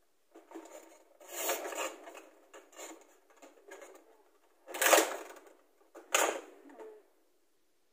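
Hand rummaging inside a cardboard gift box: rustling and crinkling of the packaging around the items, with louder rustles about a second and a half, five and six seconds in.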